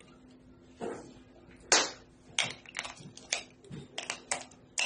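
Hard plastic clicks and knocks from a COB work light's housing being handled around its battery compartment: a sharp knock a little under two seconds in, then a run of quicker, irregular clicks.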